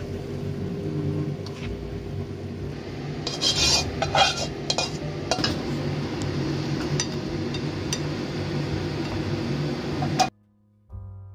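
Plastic spatula stirring and scraping food in a nonstick wok, with clinks of utensil on cookware, over a steady hum. It cuts off abruptly near the end, and soft piano music begins.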